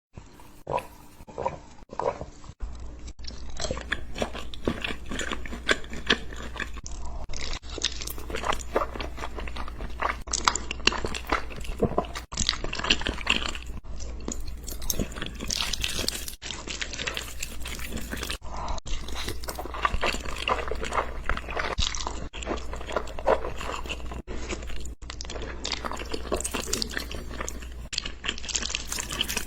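Close-miked crunching as a person bites and chews crisp food: dense, crackly crunches, with the sound changing abruptly every few seconds. A faint low hum sits underneath from a few seconds in.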